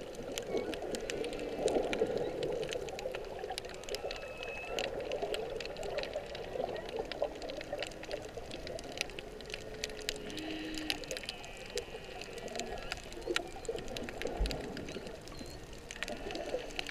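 Humpback whale song heard underwater: a string of short moaning tones, some level and some gliding, with higher squeaky notes between them. Under the song runs a constant crackle of faint clicks and the wash of water around the camera housing.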